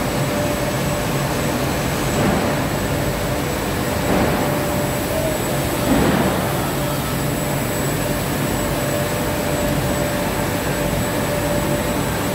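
Clear plastic-film (cellophane) winding machinery running steadily on a factory floor: a constant mechanical din with a steady high whine.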